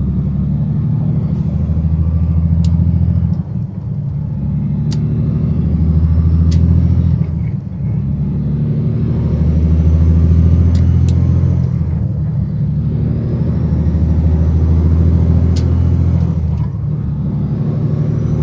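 Semi truck's diesel engine pulling on the road, its note building and then dropping back about every four seconds as if shifting up through the gears, with a faint whistle rising alongside each pull. A few light clicks or rattles are heard now and then.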